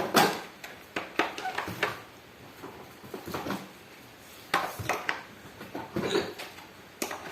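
Hard plastic wardrobe panels and parts being handled, giving a string of irregular sharp knocks and clicks, some in quick pairs.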